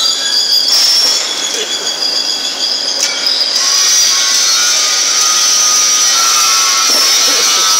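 Manual metal arc (stick) welding arc burning steadily with an even hiss, settling in about three and a half seconds in. Before that, high-pitched squealing tones.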